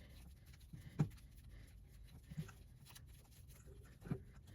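Three faint, short knocks and clicks of valve-body bolts being handled and started by hand into the transmission, the first about a second in the loudest.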